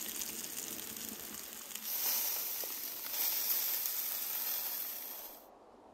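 Whole chickens roasting on spits over glowing charcoal, sizzling and hissing as they cook. The sound grows louder about two seconds in and cuts off suddenly near the end.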